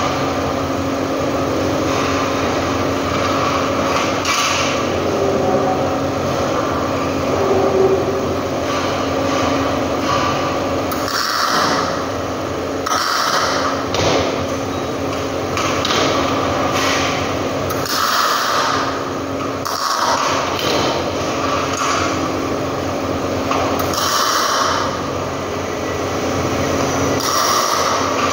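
Steady machine hum of a metal workshop. From about eleven seconds in come repeated short clatters and scrapes as sheet-metal parts are handled and set in place on a metal workbench.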